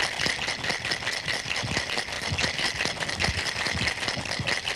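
Ice cubes rattling in a cocktail shaker shaken hard and steadily, mixing and chilling a drink.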